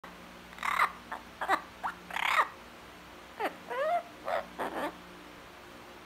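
Blue-fronted Amazon parrot vocalising: a string of short calls and chatter in two bursts, some sliding up and down in pitch, stopping about five seconds in.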